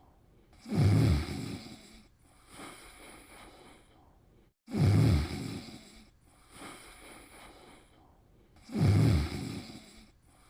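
Snoring: three loud, low snores about four seconds apart, each followed by a softer breath.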